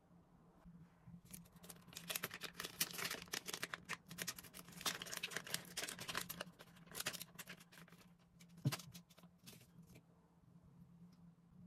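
Clear plastic packaging of under-eye gel patches crinkling and crackling as it is handled and opened. A single knock comes about three-quarters of the way through, over a low steady hum.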